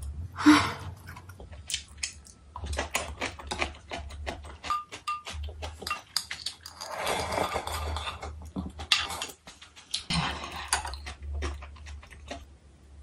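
Close-miked eating sounds: wet chewing and smacking with light clinks of wooden chopsticks and a ceramic bowl, then, about halfway through, a few seconds of slurping and swallowing as the last of the beef-bone soup broth is drunk straight from the bowl.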